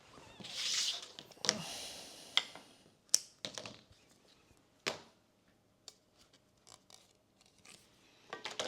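Handling noises while working on a badminton racket's handle: a brief rustling or rubbing, then a handful of sharp clicks and taps.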